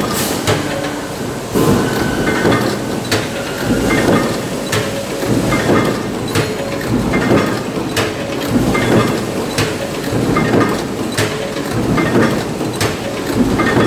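Industrial machine running steadily, with a sharp clanking stroke about every one and a half seconds over a constant mechanical rattle.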